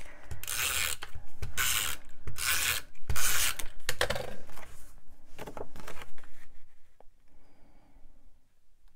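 Stampin' Up! Snail tape runner drawn across the back of a cardstock panel in about five strokes, laying down adhesive. A few shorter rubbing sounds follow as the panel is pressed down by hand onto the paper beneath.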